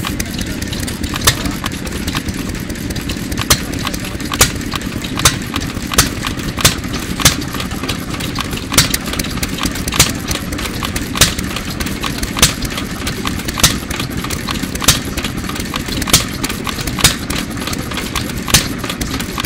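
Hercules-built ARCO Type GH 2 hp hit-and-miss engine running under its governor. It gives a sharp exhaust bang roughly once a second at uneven spacing, sometimes two close together, and coasts between them. The engine fires only when its speed drops below the set speed and holds the exhaust valve open while it coasts.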